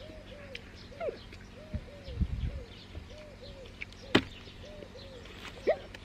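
A dove cooing over and over in soft paired notes. Two short rising squeaks cut across it, a small one about a second in and a louder one near the end, and there is a sharp click about four seconds in.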